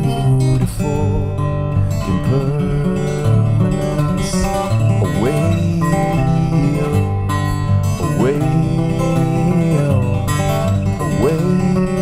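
Six-string acoustic guitar played solo, an instrumental passage of picked and strummed notes with no singing.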